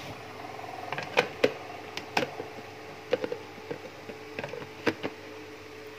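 About a dozen light, irregular clicks and taps over a faint steady hum, the kind of small knocks made by handling plastic kitchen things such as a blender jar and its lid.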